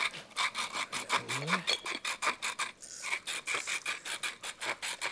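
A tall pepper mill being twisted by hand, grinding peppercorns into a pot. It makes a quick run of rasping crunches, about five a second, with a short pause near the middle.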